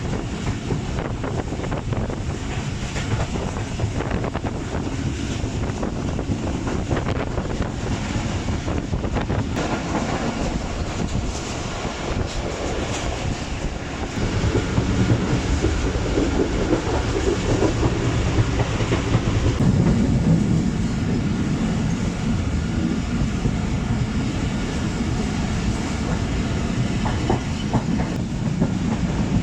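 Passenger train carriage running along the track: a steady rumble of wheels on rail with clickety-clack over the rail joints, getting louder about halfway through.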